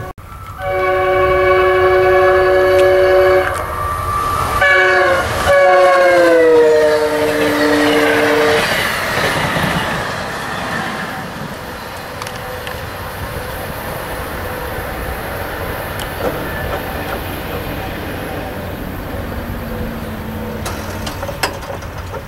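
Amtrak electric locomotive's multi-note horn sounding several blasts, the last one sliding down in pitch as it passes. The passenger train's rolling rumble follows, fading slowly as it moves away.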